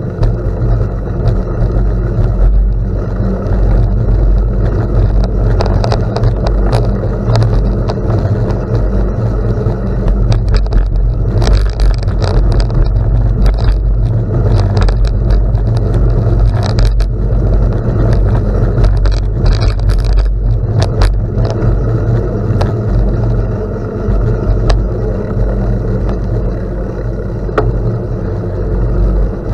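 Bicycle riding on gravel: a steady low rumble of tyres and air past the microphone, with scattered sharp clicks and rattles from stones and the bike.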